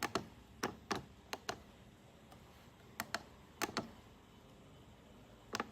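Buttons on a VFD's LCD keypad being pressed, a series of sharp plastic clicks, many in quick press-and-release pairs, spaced roughly a second apart.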